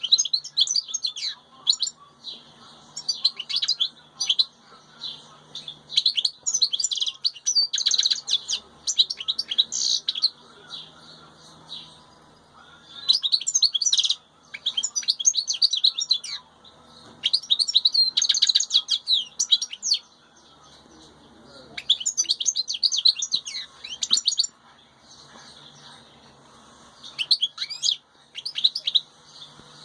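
European goldfinch singing: bursts of fast, high twittering song, each a second or three long, repeated with short pauses between.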